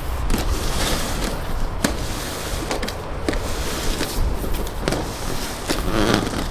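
Cable being fed by hand into corrugated plastic duct, with scattered scrapes and knocks as it rubs the duct, under a steady rumble of wind buffeting the microphone.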